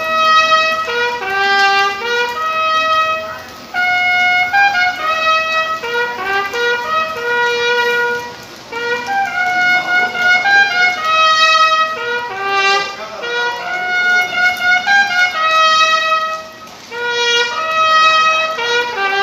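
Bugle (clarim) played solo: a melody of clear, held notes in phrases, with short pauses for breath about four, eight and a half and sixteen and a half seconds in.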